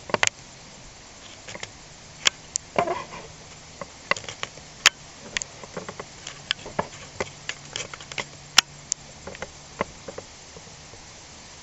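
Irregular light clicks and taps of hand-worked parts in the shift mechanism of a Kawasaki KDX200's opened clutch side, with a faint steady hum underneath.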